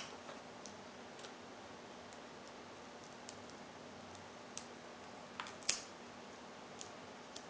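Faint scattered ticks and crackles of a paper transfer sheet being peeled back off a vinyl decal on a painted saw blade, with a sharper snap about five and a half seconds in, over a steady low hum.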